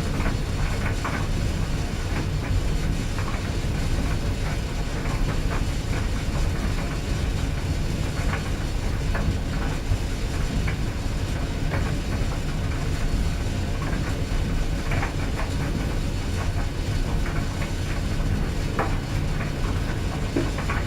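Clothes dryer running: a steady low rumble of the turning drum, with scattered light clicks and taps through it.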